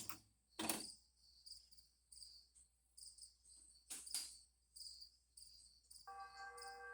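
Faint cricket chirping, evenly repeated, with two brief whooshes about a second and four seconds in; a soft sustained chord of several tones comes in near the end.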